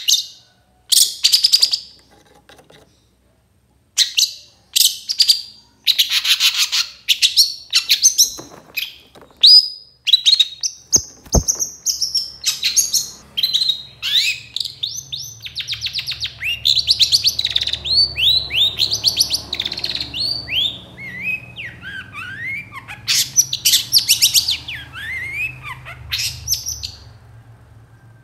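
Long-tailed shrike (cendet) singing in bursts of harsh rapid chatter, broken by a short pause early on. In the second half the chatter gives way to quick rising and falling whistled notes, with a faint low hum underneath.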